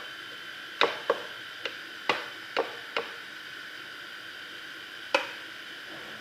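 A metal spoon knocking and clinking against a bowl as a thick cream topping is scooped out: about six sharp knocks in quick succession over the first three seconds, then one more about five seconds in.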